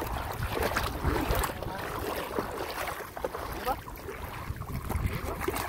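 Bare feet wading and splashing through shallow water, with wind rumbling on the microphone.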